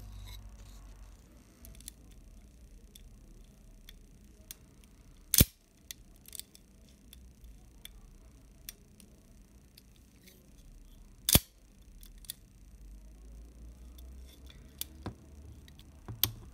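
Leica IIIG's cloth focal-plane shutter fired twice, about six seconds apart, each release a single sharp click. Fainter ticks and clicks of the camera being handled come in between.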